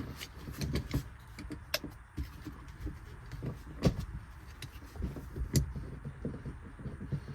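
Seat belt webbing and metal buckle hardware being handled and worked through the floor of a car, with irregular clicks and knocks; the sharpest come about two, four and five and a half seconds in.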